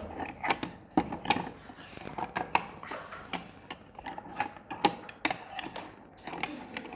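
Plastic toy kitchen utensils and pot clattering and scraping: irregular clicks and knocks, several a second.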